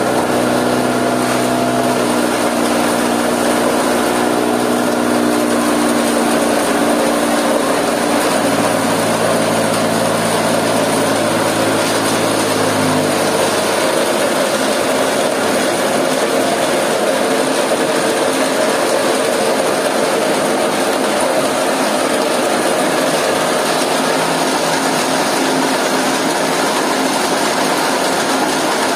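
Small hammer-mill stone crusher, driven by a three-phase electric motor, running steadily. A set of steady humming tones fades out about thirteen seconds in, leaving a dense, even mechanical din.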